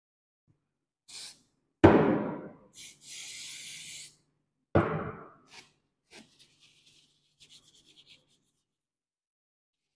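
Aerosol cleaner sprayed onto a magnetic particle test sample: a short spurt, a loud knock, another short spurt, then a steady hiss of about a second, followed by a second loud knock. Faint rustling and rubbing follow as the part is wiped with a tissue.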